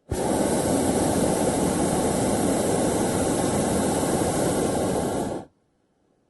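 Hot-air balloon's propane burner firing: a loud, steady rushing blast that starts abruptly, holds for about five seconds and cuts off sharply.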